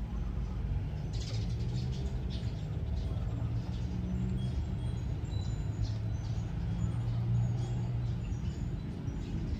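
Faint, high-pitched squeaks from six-day-old newborn puppies, heard over a steady low engine hum.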